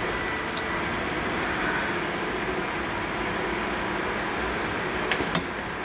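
Juki AMS-210EN computer-controlled pattern sewing machine running steadily as it stitches a piece of hook-and-loop (Velcro). A few sharp clicks come near the end.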